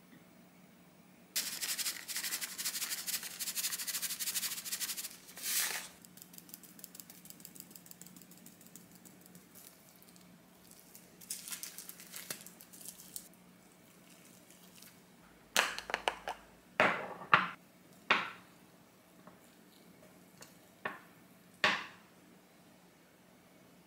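A spoon clinking and scraping against a glass of thick red bean paste and a small ceramic dish as the paste is scooped out: several sharp knocks in the second half. Earlier come a few seconds of dense scratchy rustling and a shorter patch of it.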